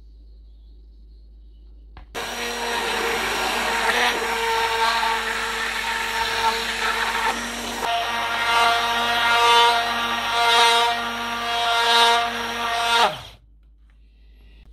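Hand-held immersion blender running in a plastic jug, puréeing cooked vegetables and broth into a thick paste: a steady motor whine over wet churning, starting about two seconds in, its pitch shifting now and then. It switches off and spins down near the end.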